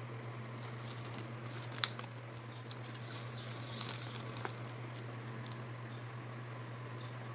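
Packaging being handled and opened: scattered small clicks and plastic crinkling, with one sharp click about two seconds in, over a steady low hum.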